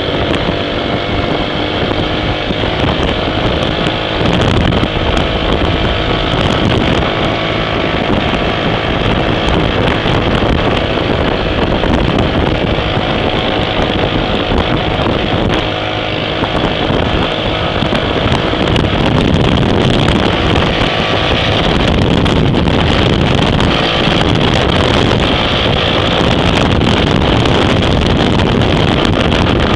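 Motorcycle riding at speed: heavy wind buffeting the microphone over the running engine, whose steady hum fades under the wind about two-thirds of the way through.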